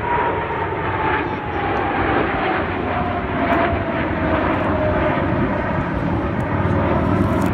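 Four F/A-18 jet fighters flying past overhead in formation: a steady jet-engine rumble with a whine that slowly falls in pitch as they go by.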